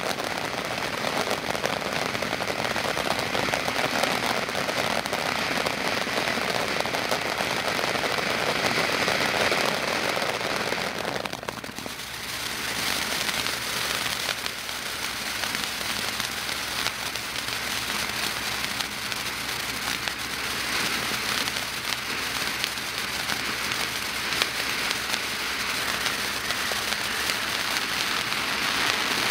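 Ground firework fountain (World Class Fireworks 'Reaper') spraying sparks with a steady, dense hiss and crackle. The sound dips briefly about twelve seconds in, then carries on at full strength.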